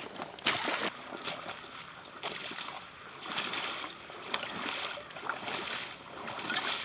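Steps of a person wading in waders through shallow marsh water, a sloshing splash with each stride about once a second.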